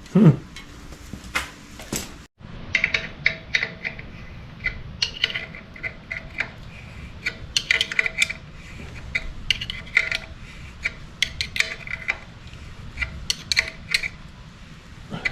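Small metal parts and fittings clinking and rattling irregularly, several light clinks a second, as someone rummages through a box of hardware looking for an adapter fitting.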